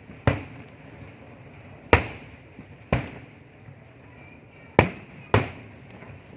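Fireworks exploding: five sharp bangs at uneven intervals, each followed by a brief echoing tail.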